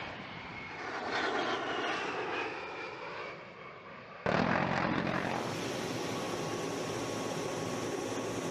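A-10 Warthog's twin turbofan jet engines as the aircraft passes low overhead, a rushing jet noise that sweeps in pitch. About four seconds in it changes abruptly to a steady, even jet-engine noise with a thin high whine.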